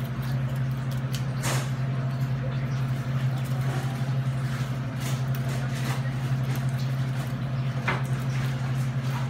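A steady low machine hum throughout, with a few faint clicks and scrapes from a fish being handled on a plastic cutting board.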